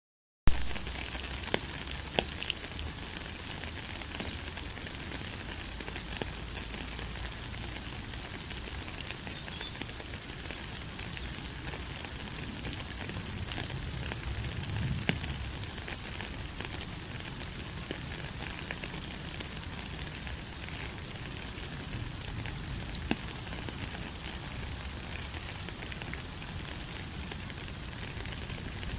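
Steady rain falling, an even hiss with many small scattered drop ticks.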